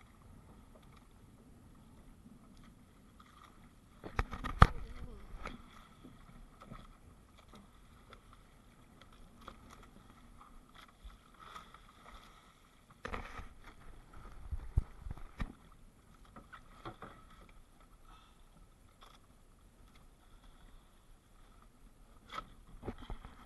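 Sea water washing against a small outrigger fishing boat, broken by knocks and bumps of fishing gear being handled in the boat while a longline is hauled in; the loudest is a sharp knock about four and a half seconds in, with more around the middle and near the end.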